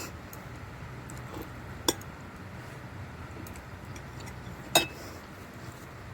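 Eating utensils clinking against tableware now and then, with two sharper clinks about two and five seconds in, over a steady low hum.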